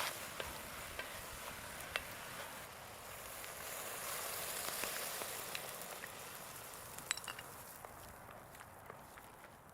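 Food sizzling in a cast iron cauldron, a steady hiss with scattered sharp pops and crackles that dies down over the last few seconds.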